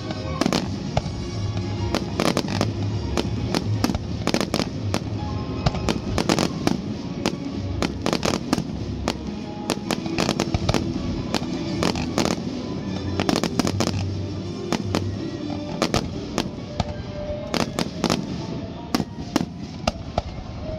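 Fireworks display: a rapid, irregular run of bangs and crackles, several a second, thinning out over the last few seconds, with music playing underneath.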